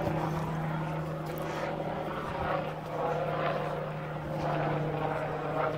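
Isuzu D-Max ute's diesel engine running with a steady low drone while driving, heard from inside the cab.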